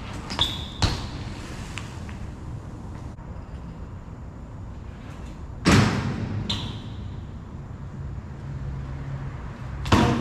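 A few sharp knocks, two of them followed by a brief metallic ring, over a low steady hum.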